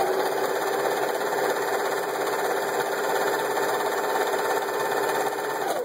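Singer 353 Genie zigzag sewing machine running steadily at full speed, sewing its multi-stitch zigzag pattern; it stops suddenly near the end.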